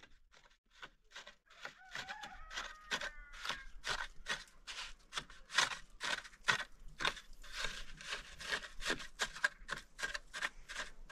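Mason's trowel scraping and tapping cement mortar along the top of a concrete-block wall, in short repeated strokes, about three a second.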